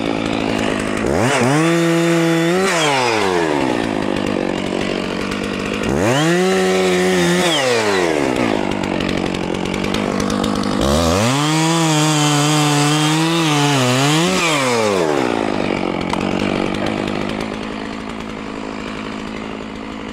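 Stihl MS660 two-stroke chainsaw cutting a fallen log: the engine revs up three times, each time rising to full speed, holding through the cut and dropping back to idle. The third cut is the longest, about four seconds, with a brief dip in pitch near its end. The saw idles between the cuts and after the last one.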